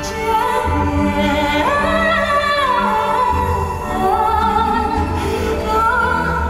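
A male singer's high, clear voice singing long held notes with vibrato, rising to a higher note about two seconds in, over live instrumental accompaniment with a steady low bass.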